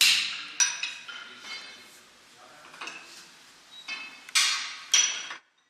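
Blacksmith's hammer striking metal on an anvil: about seven irregular blows, each ringing after the strike, loudest at the start and twice near the end. The sound cuts off abruptly just before the end.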